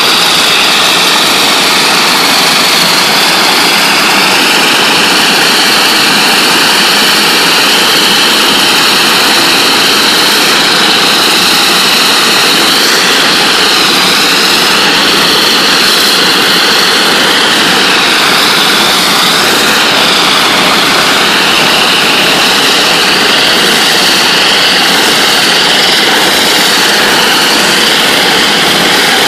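NLB Spin Jet rotary water-jetting head spraying 40,000 psi water from its spinning nozzles onto the floor: a loud, steady hissing scream with high tones that waver slightly.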